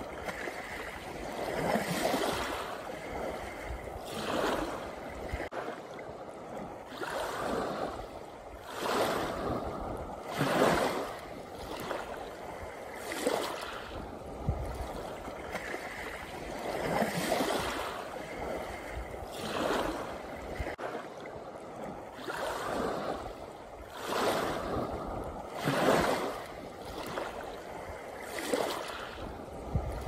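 Small waves breaking and washing up a pebble shore, a rushing surge every two to three seconds that swells and falls away.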